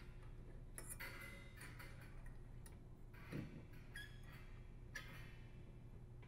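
Faint, scattered metallic clicks and ticks of a 1/8-inch Allen wrench as it tightens the set screw on a bath fan heater's blower wheel.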